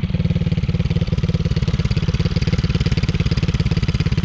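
A small 110cc ATV's single-cylinder engine runs at a steady speed, making an even, rapid putter with no clear rise or fall in pitch.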